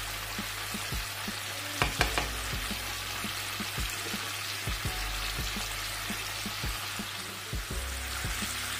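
Chicken pieces frying in plenty of hot oil in a pan, a steady sizzle with a few sharp clicks about two seconds in.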